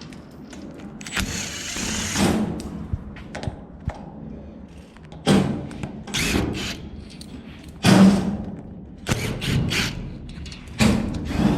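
Cordless drill-driver running in short bursts, about eight times, backing screws out of an industrial dehumidifier's panels to take it apart, with a few knocks between them.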